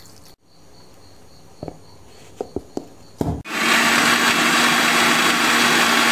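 A few clicks and knocks, then about three and a half seconds in an electric mixer-grinder starts and runs loud and steady, grinding grated coconut with a little water into a fine paste.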